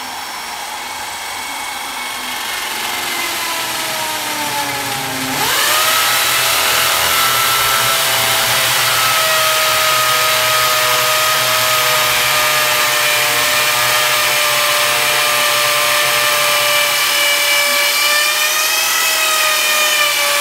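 Corded electric drill boring a hole into a cement wall. Its motor whine sags in pitch over the first few seconds, then about five seconds in jumps higher and louder and holds steady.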